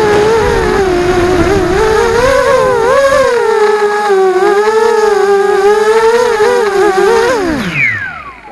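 Racing quadcopter's four ZMR 1804 2200kv brushless motors with 5030 props whining, the pitch wavering up and down with the throttle. About seven and a half seconds in, the whine falls steeply in pitch and dies away as the motors spin down.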